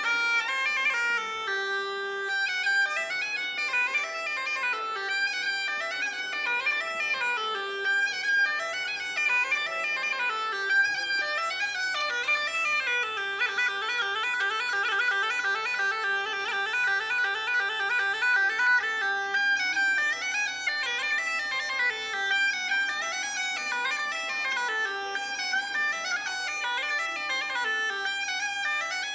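Mouth-blown bagpipe with a single long drone playing a continuous tune: a steady drone under a stepping melody on the chanter. A deeper steady tone joins about eleven seconds in.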